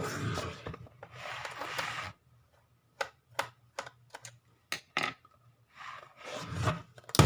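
Screwdriver scraping and grinding as screws are turned out of a laptop's plastic underside, in two stretches early on and again about six seconds in. A scatter of sharp small clicks falls in between, and a louder click comes near the end.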